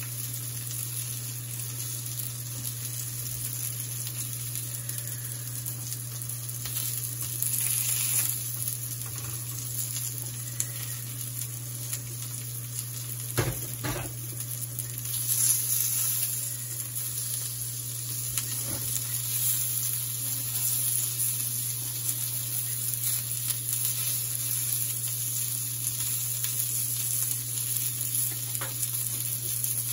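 Chicken kabab patties sizzling steadily in hot oil in a flat frying pan, with a few brief scrapes or knocks of a spatula against the pan as they are turned, the clearest about halfway through.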